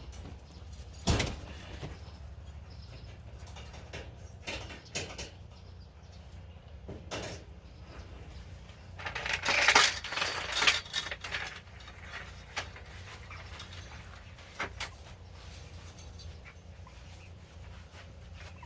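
Light metal chain clinking and rattling as it is handled and hung. Scattered clinks, with a sharp knock about a second in and a burst of rattling around nine to eleven seconds.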